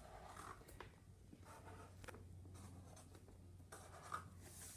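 Faint short, uneven strokes of a Sharpie felt-tip marker drawing wavy lines on paper, over a low steady hum.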